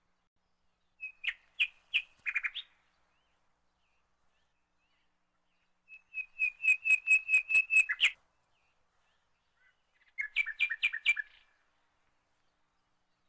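A bird chirping in three short phrases of quick, evenly repeated high notes: one about a second in, a longer one of about two seconds around six seconds in, and a shorter one around ten seconds in.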